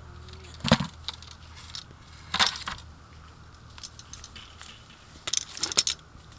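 Peaches and a fruit-picker pole knocking and thudding in a plastic bucket: a sharp knock about a second in, another about two and a half seconds in, and a quick run of knocks near the end, over steady outdoor background noise.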